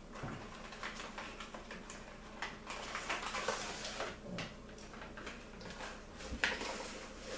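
A cardboard cake-mix box being opened and its inner bag of mix pulled out and handled, with a run of small rustles and crinkles and one sharper knock near the end.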